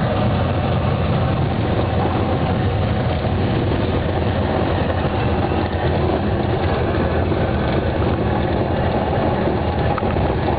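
Steady cabin noise of a Cessna 206 during its landing roll on a grass airstrip: the flat-six piston engine and propeller drone on without a break, heard from inside the cabin.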